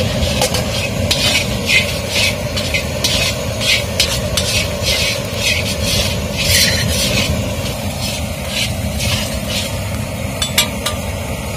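A flat metal spatula sweeping and scraping coriander seeds around a large iron kadai as they dry-roast, a rattling swish every half second or so, over a steady low rumble.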